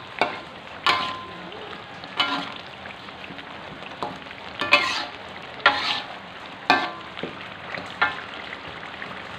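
Ground spice paste with lemongrass and leaves sizzling in oil in a wok, while a metal spatula stirs it, scraping and clanking against the pan about once a second, seven times. Each spatula strike rings briefly and is louder than the steady sizzle.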